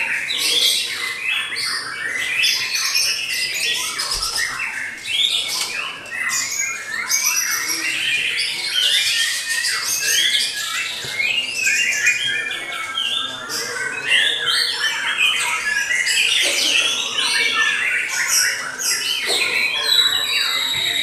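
White-rumped shama singing a continuous, rapid stream of varied whistles and chirps.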